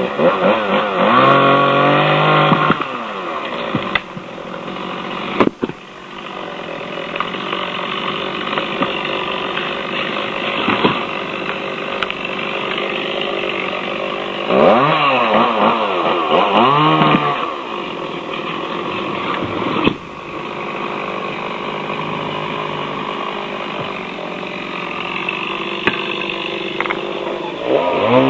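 Chainsaw running and cutting a branch. The engine revs up and down in pitch near the start and again around fifteen seconds in, and runs steadily in between.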